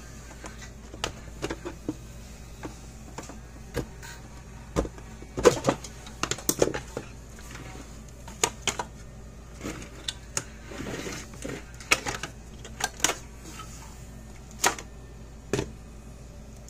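Irregular clicks, knocks and light clatter as the plastic case of a Gallagher M150 electric fence energizer is handled and opened by hand and its circuit board is lifted out, with a short rustle partway through.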